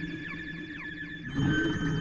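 AIR Vacuum Pro virtual analog synthesizer plugin playing a sustained low patch with repeated short downward-sweeping high blips over it. A new note swells in a little past halfway.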